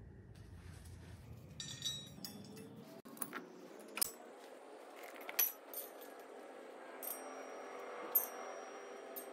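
Light metallic clinks and taps of bolts and hand tools during flex plate installation on an LS engine, with one ringing clink about two seconds in and sharp ticks scattered after it.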